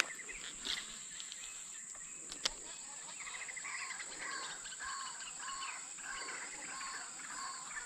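Insects droning steadily on one high note while birds call, a short arched note repeated about twice a second from a few seconds in, and a single sharp click a little past two seconds.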